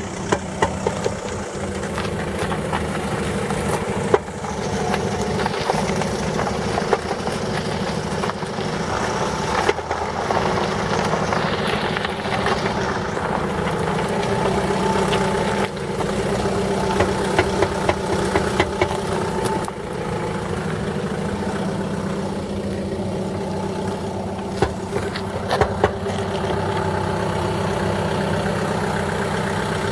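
SsangYong Kyron engine running at low speed as the SUV is driven slowly back and forth, with a few scattered sharp knocks, possibly the rear-left wheel knock being tested for.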